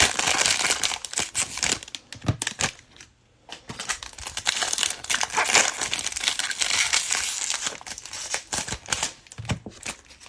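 Trading-card pack wrappers being crinkled and torn open by hand: a crackly rustling that comes and goes in clusters, with a short lull about three seconds in.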